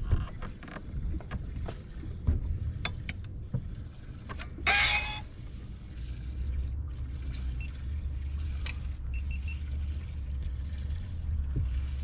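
Low steady rumble of a fishing boat, growing a little stronger about six seconds in, with small clicks and knocks of tackle being handled. A brief loud rush of noise comes about five seconds in.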